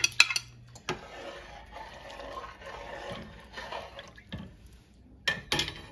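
Water boiling in a metal pot with rice just added, bubbling steadily as a metal spoon stirs it. The spoon clinks against the pot just after the start and again near the end.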